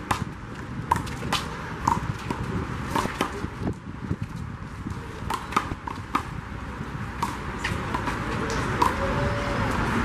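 Hands slapping a small rubber handball and the ball smacking off the concrete wall and court during a one-wall doubles rally: sharp cracks at uneven intervals, about one or two a second.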